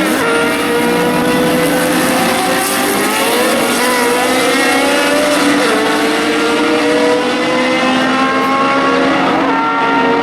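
Historic endurance race cars accelerating hard at full throttle. The engine note climbs steadily and drops at each upshift, about four times.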